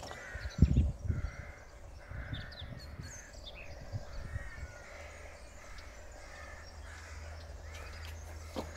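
Birds outdoors giving repeated harsh calls, with a couple of low thumps about a second in and a steady low hum starting about halfway through.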